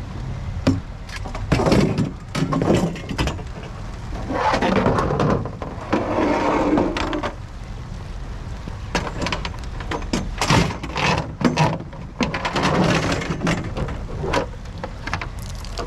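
Irregular knocks, clatter and rustling as wet salvaged items are picked up, handled and stowed, over a steady low rumble.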